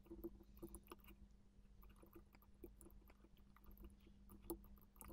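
Near silence: a faint steady electrical hum with a few soft, scattered clicks, like a computer mouse being clicked during 3D modelling work.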